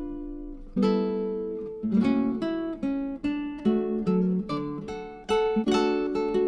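Background music: acoustic guitar, plucked chords and notes that ring and fade between strums.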